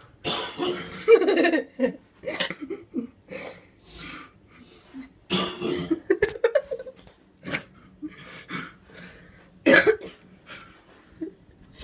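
A man coughing repeatedly in several fits, with short pauses between; the loudest coughs come about a second in, around the middle and near the end.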